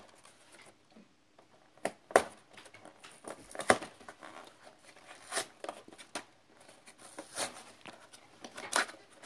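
Hands handling and picking at a shrink-wrapped cardboard card box: scattered crinkles of the plastic wrap, with a few sharp taps and clicks against the box.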